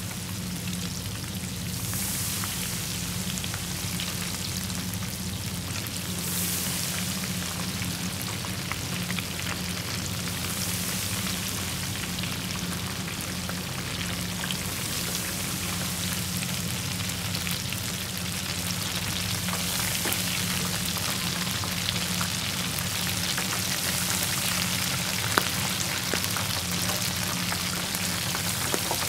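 King shrimp frying in hot oil: a steady sizzle with dense fine crackling.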